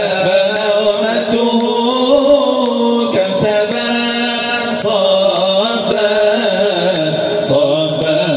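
A man's voice singing an Arabic Islamic nasheed in a slow, melismatic chant, with a long held note in the middle.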